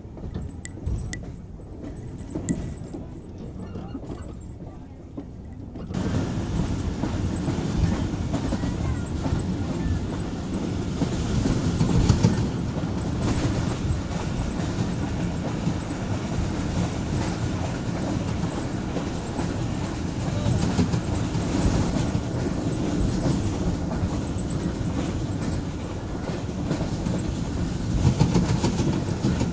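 Jaffar Express passenger train running on the track, heard from on board at an open door or window: a steady rumble and clatter of wheels on rails. It is quieter with a few sharp clicks at first, and much louder from about six seconds in.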